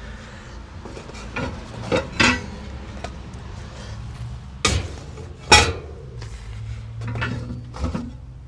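Metal grill parts of a kamado grill clanking and knocking as they are handled to get at the charcoal basket. There are several sharp knocks, with the loudest about five and a half seconds in.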